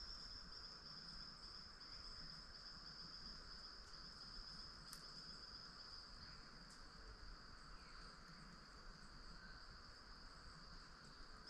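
Faint forest ambience: a steady, high-pitched insect drone like crickets, unbroken throughout, over a softer even hiss, with a couple of tiny ticks near the middle.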